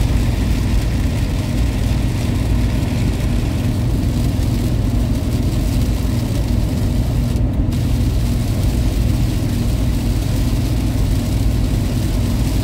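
Inside a Toyota Kijang LGX minivan cruising on a highway in heavy rain: a steady engine and road drone with an even hiss of rain on the body and windscreen. The rain hiss briefly cuts out about seven and a half seconds in, as the van passes under an overpass.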